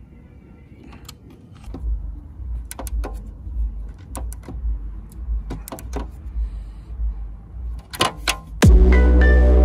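Small ratchet wrench clicking in short irregular runs as it snugs the radiator guard's bolts, over a low rumble. Electronic music starts loudly, with a falling sweep, about a second before the end.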